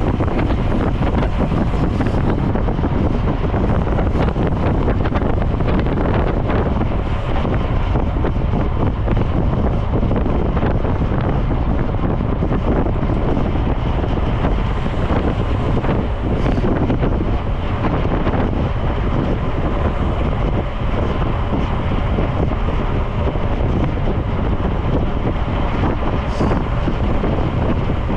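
Steady wind buffeting the microphone of a camera carried on a road bicycle ridden at speed.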